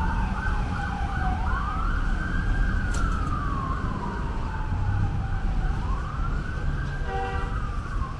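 Emergency vehicle siren in wail mode: a single tone slowly rising and falling, about two full sweeps, over a low traffic rumble.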